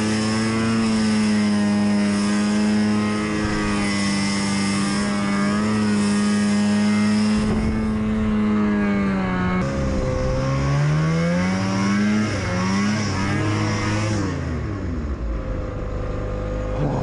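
Yamaha Enticer snowmobile's two-stroke engine held wide open, its track spinning in about a foot of deep snow with almost no forward motion. The engine note stays high and steady, drops and climbs again about ten to twelve seconds in, and gives way to a quieter steady hum near the end.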